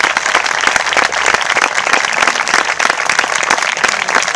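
A crowd of guests applauding: many hands clapping in a dense, steady patter.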